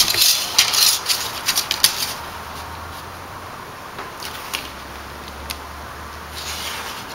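A pen drawing a line along a small ruler on thin aluminium flashing, with the sheet crinkling under gloved hands. For about the first two seconds there is a run of scratchy clicks and crinkles; then it goes mostly quiet, with a low hum and a few isolated clicks.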